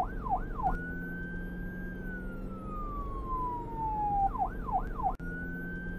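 Electronic police siren switching between modes: a few quick warbling yelps, then a long wail tone that slowly falls in pitch, then quick yelps again about four seconds in before a long tone returns near the end.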